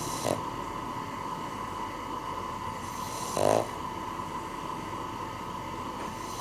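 Cavalier King Charles Spaniel snoring in its sleep: a breath and a short, soft snore right at the start, then a louder snore about three and a half seconds in, over a steady faint hum.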